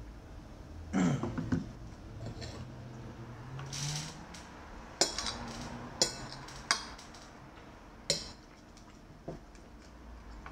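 Metal spoon clinking and scraping against a ceramic plate: about half a dozen sharp clinks, the loudest about a second in.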